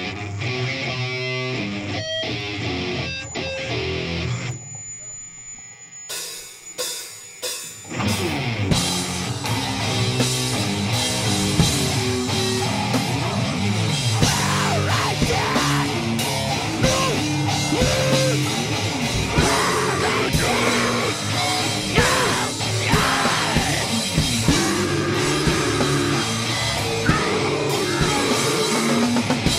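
A powerviolence band playing live: a few guitar notes, a short lull and some hits, then about eight seconds in the full band comes in with drum kit, distorted electric guitar and bass. Shouted vocals come in over the band later on.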